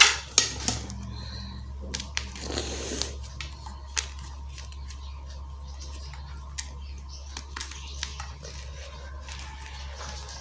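Gym chalk being crunched and crumbled: a few sharp cracks in the first seconds, then scattered light crackles, over a steady low hum.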